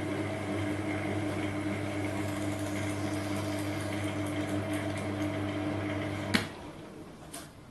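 Small Chinese metal lathe running with a steady motor hum while a wide parting blade cuts into a large cast-aluminium block. About six seconds in there is a click and the hum stops as the lathe is switched off.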